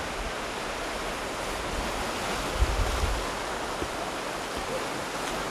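Sea surf washing on the shore: a steady rushing noise. A brief low rumble of wind on the microphone comes about halfway through.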